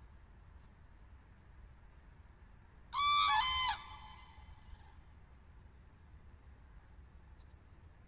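Common crane calling once about three seconds in: a loud, ringing call of two overlapping notes lasting under a second, trailing off in echo. Faint high chirps of small birds come before and after it.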